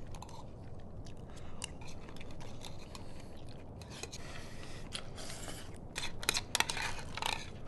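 A metal spoon scraping and clicking against the inside of a tin can, mixed with chewing; the scrapes come in a quick, louder run about six seconds in.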